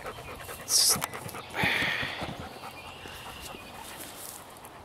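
A dog panting and snuffling close to the microphone: a short breathy hiss about a second in and a longer one around two seconds, then quieter.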